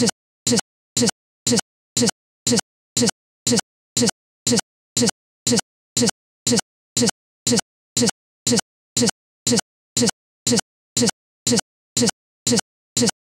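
A brief pitched snippet of sound, a fraction of a second long, repeating identically about twice a second with dead silence between: audio stuck in a loop, a playback or encoding glitch.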